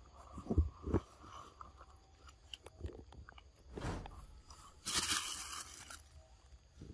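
Macaque biting into and chewing ripe papaya, wet crunching and chewing close up in irregular bites. A few heavier thuds come in the first second, and a noisy burst lasts about a second roughly five seconds in.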